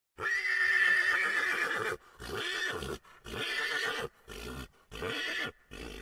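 A pony whinnying: one long, high call lasting almost two seconds, followed by five shorter, weaker calls in quick succession.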